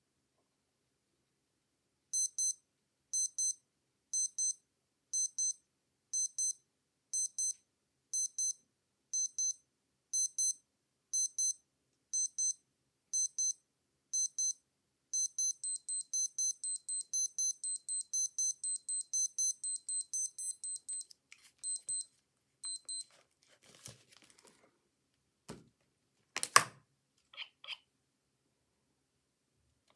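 Digital wristwatch alarm beeping: high-pitched double beeps about once a second, changing after about thirteen seconds to a faster continuous run of beeps, then a few stray beeps. Several clicks and knocks follow near the end, one of them loud.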